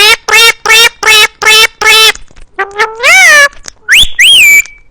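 A parrot calling very loudly: a run of about six short, evenly spaced cries, then a longer call that rises and falls, and two higher, shrill calls near the end.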